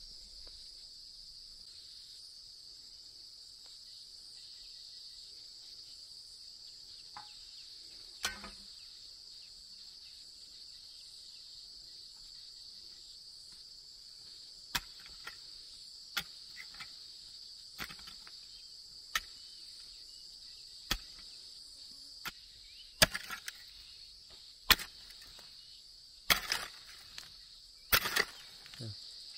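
Sharp knocks of a hand tool striking wood: a single one about eight seconds in, then a knock about every one and a half to two seconds, growing louder toward the end. A steady high chirring of insects runs underneath.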